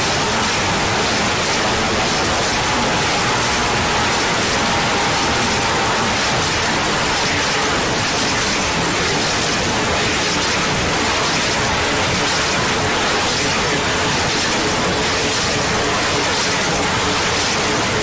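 A loud, steady hiss of noise that does not change or break, with faint held tones underneath.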